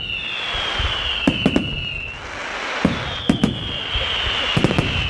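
Fireworks display: clusters of two or three sharp bangs from bursting shells about every second and a half. Two long whistles fall slightly in pitch over a steady hiss.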